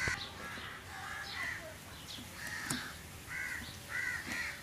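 Birds calling: a run of short repeated calls, about eight, two of them close together near the end.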